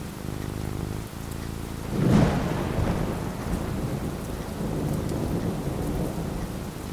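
Steady rain with a thunderclap about two seconds in, its low rumble rolling on after it.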